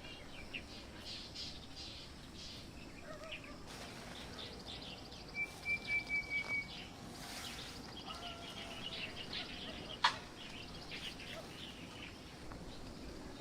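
Birds chirping and calling over a steady outdoor hiss. About five and a half seconds in comes a quick run of about seven loud notes at one pitch, and near ten seconds a single sharp click.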